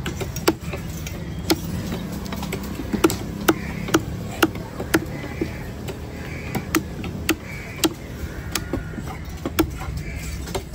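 Heavy steel cleaver chopping pomfret into pieces on a wooden log chopping block: sharp knocks, roughly one or two a second with short pauses between runs.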